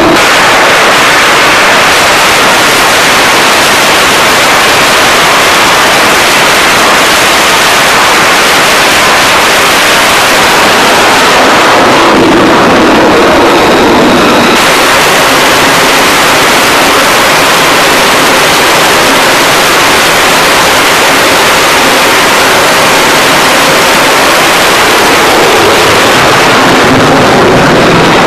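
Loud, steady roar of jet engines on an aircraft carrier's flight deck, with the high hiss briefly easing off about halfway through.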